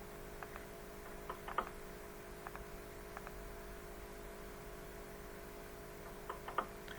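An unidentified faint tapping and clicking in small clusters of sharp ticks, the loudest about a second and a half in and another group near the end, over a steady faint hum. The investigator cannot identify it and suggests it is possibly a pebble or bit of plastic rattling against a window.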